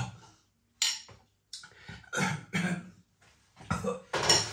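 A man coughing and breathing sharply in several short bursts, his reaction to the chilli burn of a mega-hot chicken phall curry.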